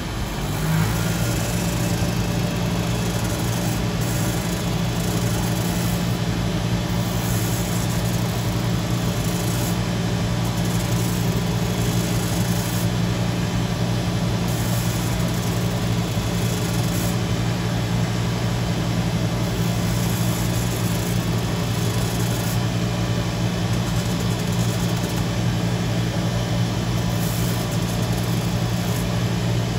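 Cobbler's shoe finishing machine running with a steady low hum, settling to speed within the first second, while a boot's sole is worked against its sanding and buffing wheels.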